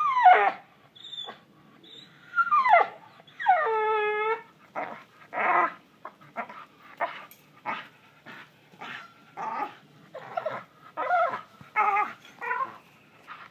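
Young dog gripping a hanging rope in its teeth and tugging, whining in drawn-out pitched cries over the first four seconds, then growling and grunting in short bursts about every half second.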